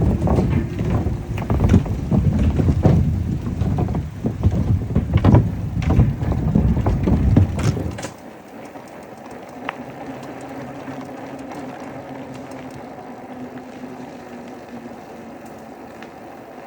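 Wind buffeting the microphone and bumps and rattles from an e-bike riding over a rough trail, loud for about eight seconds. Then it drops suddenly to a quieter, steady ride noise with a faint hum.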